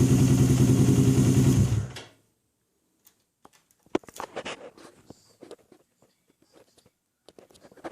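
1992 Suzuki GS500E's parallel-twin engine, breathing through a Vance and Hines exhaust, running steadily and then cutting out about two seconds in. Scattered faint clicks and knocks follow.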